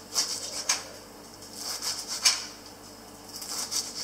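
Kitchen knife chopping fresh parsley leaves on a plastic cutting board: a run of short, crisp cuts at an uneven pace, with the blade tapping the board.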